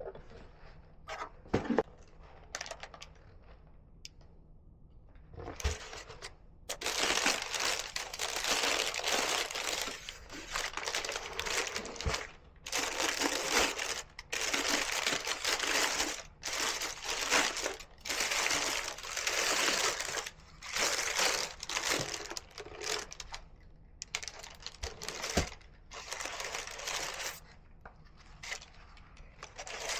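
Packaging being handled during a shoe unboxing: paper crinkling and rustling in long stretches with brief pauses. There are a few light knocks in the first few seconds.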